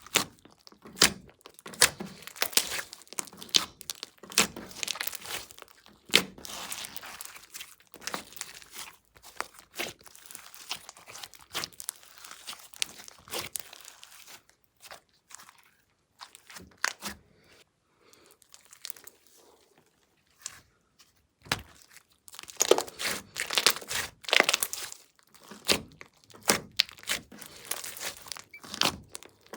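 Glossy slime mixed with clay being stretched, pressed and folded by hand, making sticky crackling and popping clicks in irregular bursts. It goes quieter for several seconds in the middle.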